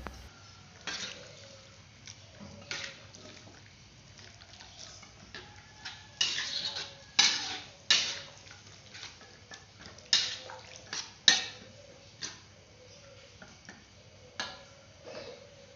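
Metal spatula scraping and clinking against a wok as vegetables in sauce are stirred, in irregular strokes that come thickest about halfway through.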